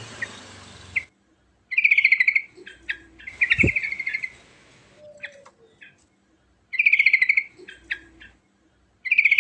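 Yellow-vented bulbul (trucukan) singing: about four short bursts of rapid, chattering song a couple of seconds apart. A steady hiss runs under the first second and cuts off suddenly.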